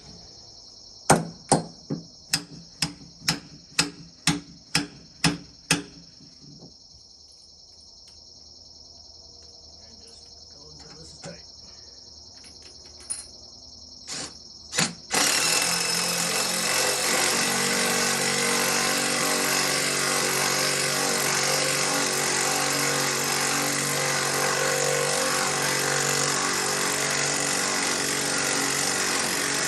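A quick run of about eleven hammer whacks on a steel angle-iron log dog, ringing and about two a second, stops about six seconds in; crickets chirp steadily. About halfway through, a brushed 3/8 impact driver starts up and hammers steadily, driving the log dog in.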